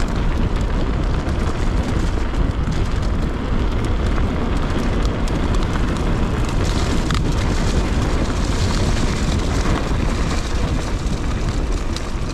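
Wind buffeting the microphone of a camera on a moving mountain bike: a heavy continuous rumble, with scattered clicks and rattles from the bike and tyres on a rough track.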